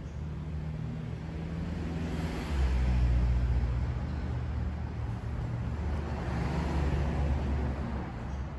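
Low engine rumble of a passing motor vehicle, swelling sharply about two and a half seconds in and easing off near the end.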